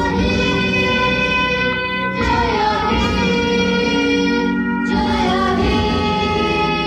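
Children's choir singing a song with music, long held notes in phrases that break about two and five seconds in, played from the cinema screen's film.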